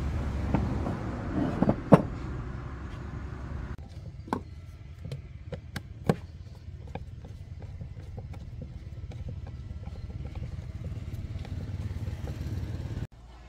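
Metal parts and tools clinking and knocking on a workbench as an electric hand planer is reassembled, then sparse light clicks of a screwdriver fastening the red handle to the aluminium housing. A steady low rumble runs underneath and cuts off suddenly near the end.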